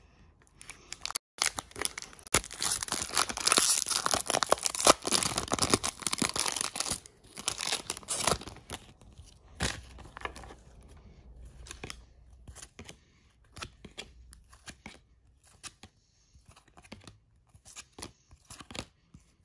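A trading-card jumbo pack's wrapper being torn open and crinkled, a dense run of tearing and crackling from about a second and a half in until about eight seconds. After that come scattered soft clicks and slides as the cards are flicked through one by one.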